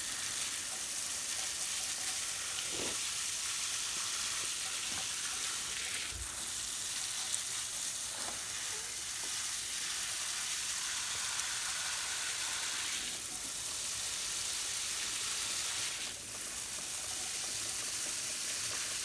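Garden hose shower nozzle spraying water onto coarse gritty soil in plastic nursery pots: a steady hiss. The freshly potted trees are being watered in, the water flushing fine dust out of the soil until the drainage runs clear.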